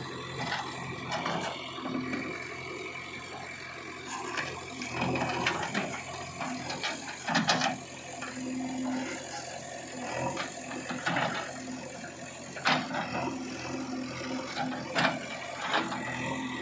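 Diesel engine of a JCB earthmoving machine running steadily, with scattered sharp knocks and clanks as it works.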